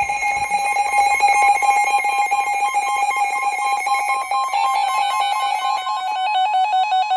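Emergency Alert System attention tone: a loud, harsh electronic alarm tone held steady, then turning into a fast warble a little past halfway. It signals that an emergency warning broadcast is about to follow.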